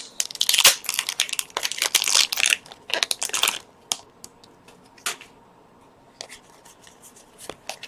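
Foil Pokémon booster pack wrapper being torn open and crinkled for about three and a half seconds, then a few faint clicks and rustles.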